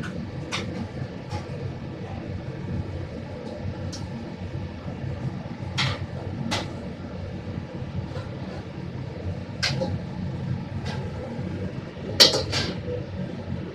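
Steady low rumble of a commercial kitchen's cooking station, with sharp metal clanks of utensils against cookware every second or two, the loudest quick run of clanks near the end.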